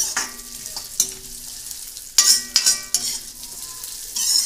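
Slivered almonds sizzling in hot ghee in an iron kadhai, stirred with a metal ladle that scrapes across the pan in repeated strokes.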